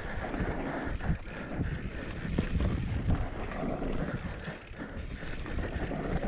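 Mountain bike descending a dirt trail at speed: wind buffeting the microphone over the rumble of the tyres on dirt, with the bike rattling and knocking repeatedly over bumps.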